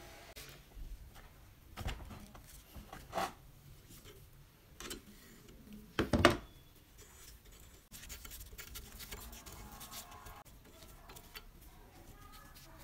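Metal handling on a rusty cast-iron meat grinder: pliers clicking and scraping on the pin at the crank-handle hub, with short knocks throughout and a louder double clank about six seconds in. From about eight seconds, a stretch of fine scraping as the parts at the hub are worked.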